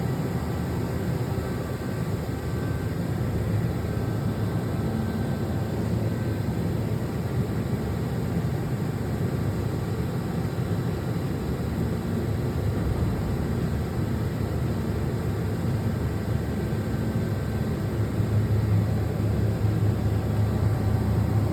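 2017 Quaser MV184E CNC vertical machining centre running a cutting program: a steady machine hum with several faint steady tones. A low hum grows louder about 18 seconds in.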